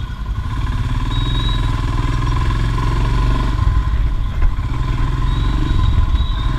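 Royal Enfield Himalayan's 411cc single-cylinder engine running steadily under way, with one short knock about four and a half seconds in.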